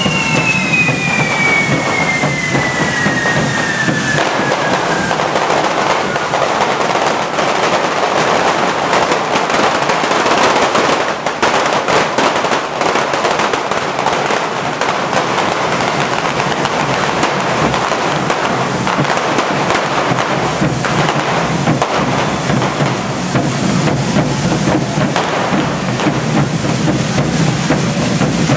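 Many carretilles, hand-held firework fountains carried on poles, hissing continuously as they spray sparks, with scattered sharp firecracker bangs, several in quick succession near the middle. A whistle falls steadily in pitch over the first few seconds.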